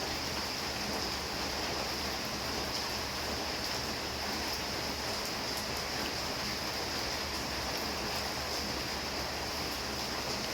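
Steady heavy rain falling, an even rushing hiss with scattered faint drop ticks.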